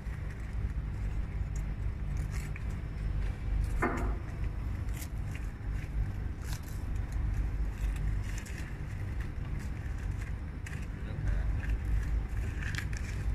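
Wires being handled by hand at a hexagonal wire mesh weaving machine: scattered light metallic clicks and scrapes over a steady low workshop rumble.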